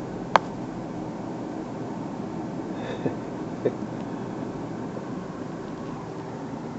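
Steady road and engine noise heard inside a car's cabin while driving, with a sharp click about half a second in and two soft knocks near the middle.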